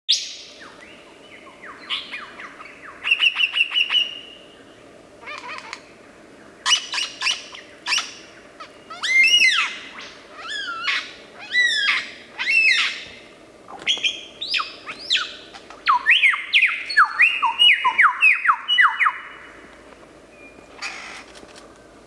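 Lyrebird singing a loud, varied song of sharp down-sweeping whistles, arching notes and quick chirps, in fast phrases with short pauses between them. It falls quiet near the end.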